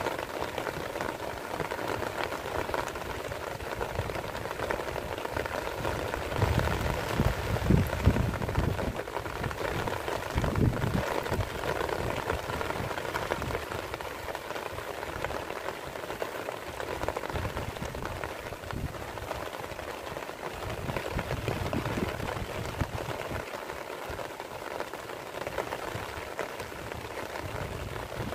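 Steady rain falling, an even hiss, with a few stronger low rumbles around the middle.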